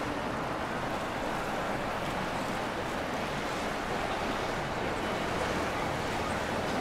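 Steady rushing noise of moving water and wind, with no distinct events.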